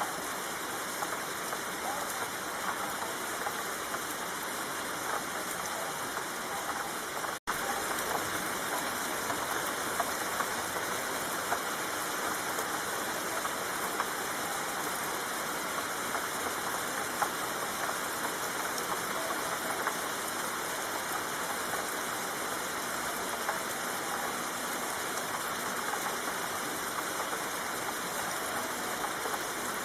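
Steady rain falling, an even hiss of drops with small scattered ticks. A split-second gap about seven seconds in breaks it.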